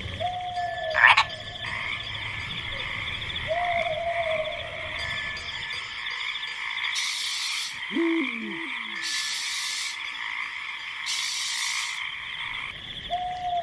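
Animal calls: short calls repeating every few seconds over a steady, high-pitched chorus, with a lower call that falls in pitch about eight seconds in.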